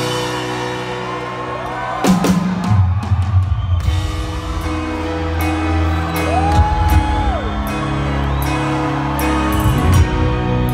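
A live rock band plays a slow piano-led ballad on a grand piano, backed by drums and electric guitar. Audience shouts and cheers rise over the music about two seconds in, and a long whoop from the crowd comes near the middle.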